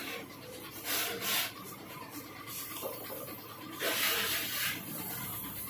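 Metal hand-tool work on the cam chain tensioner's 8 mm mounting bolts of a Hero Super Splendor engine: short rasping, scraping bursts, the loudest about a second in and about four seconds in.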